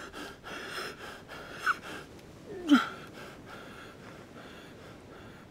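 A man's laboured, wheezing breaths and gasps, with a short falling moan about two and a half seconds in, then trailing off. This is the breathing of a man gravely ill with flu.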